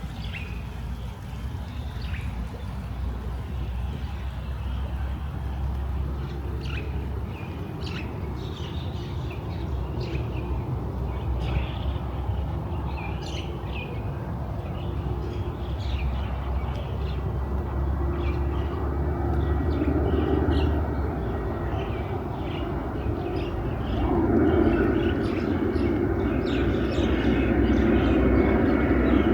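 Small birds chirping in short calls throughout, over a steady low rumble of distant traffic. A louder rumbling noise builds from about two-thirds of the way in.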